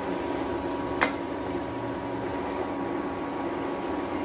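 A pot of water at a steady boil with raw banana slices cooking in it, over a constant hum. One sharp click about a second in.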